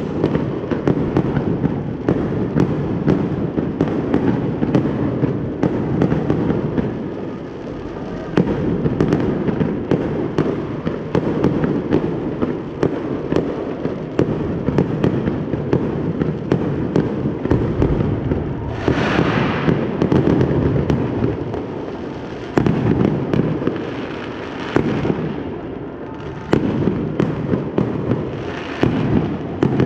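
Fireworks show: dense, continuous booms and rumble from shells bursting overhead, with many sharp bangs and brief stretches of crackle.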